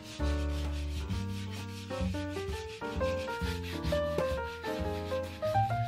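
Coarse sandpaper on a hand-held block rubbed over a painted wall in quick back-and-forth strokes, sanding back patches of peeling paint. Piano music plays along with it.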